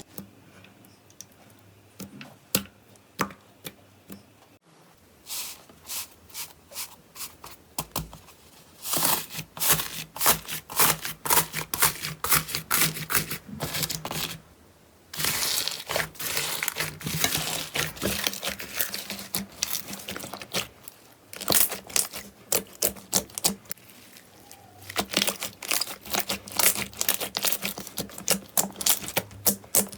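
Slime being pressed and worked by hand close to the microphone, giving a dense crackling and popping in spells. It starts with sparse, quieter clicks and pauses briefly about halfway.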